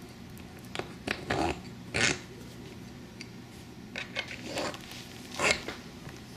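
Allen key working bolts on an aluminium wheel bracket, with hands handling the parts: a few short scraping, rasping noises, the loudest about two seconds in and again near five and a half seconds, over a faint steady hum.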